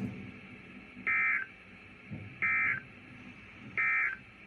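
Three short bursts of EAS SAME digital data tones from a NOAA Weather Radio broadcast, each about a third of a second long and just over a second apart: the end-of-message code that closes a warning.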